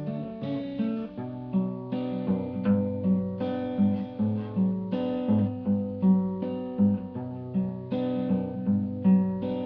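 Acoustic guitar playing an instrumental passage of chords, picked and strummed in a steady rhythm of about two strokes a second.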